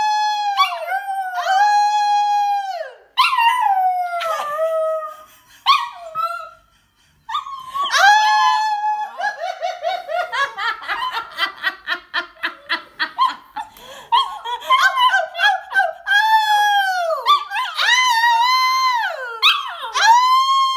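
A Pomsky puppy and a woman howling together: a series of long, wavering howls, each held a second or two and bending up or down in pitch at the ends, with a short break about seven seconds in.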